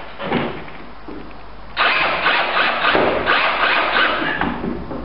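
Cordless drill-driver driving screws through a steel door hinge into the wooden frame: a short burst shortly after the start, then a longer run of about three seconds.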